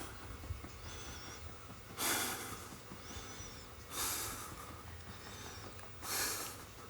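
A person breathing heavily: three loud, hissing breaths about two seconds apart.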